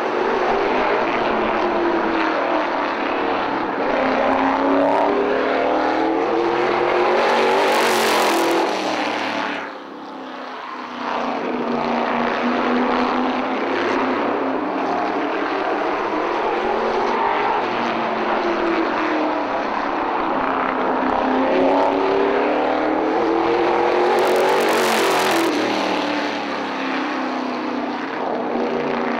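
Stock car lapping the oval, its engine note rising and falling as it accelerates and slows around the track. It passes close by loudly twice, about 8 seconds in and again near 25 seconds, with a brief drop in level just after the first pass.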